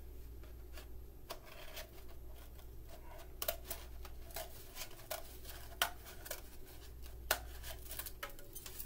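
Scissors snipping and crunching through a cardboard paper towel tube in an irregular series of short cuts, a few sharper than the rest, trimming the tube shorter to raise its pitch as a boomwhacker.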